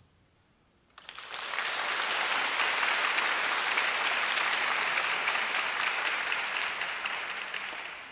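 Audience applauding, starting suddenly about a second in, holding steady, then fading near the end.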